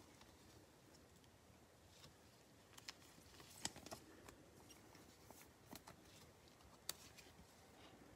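Faint handling sounds of trading cards being slid into soft plastic sleeves and rigid top loaders: scattered light clicks and plastic rustles over a quiet room, the sharpest tick about seven seconds in.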